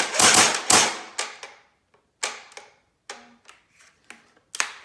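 Electric Kalashnikov AK-47 airsoft rifle firing: a quick loud run of shots in the first second, then weaker single clicks, each with a brief motor hum, about once a second, as the gearbox struggles to cycle. The owner takes this to mean the battery is nearly dead.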